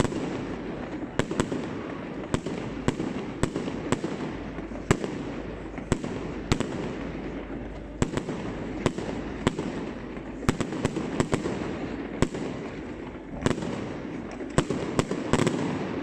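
Fireworks display going off: a steady run of sharp bangs at irregular intervals, about one or two a second with a few quick clusters, over a continuous crackling background.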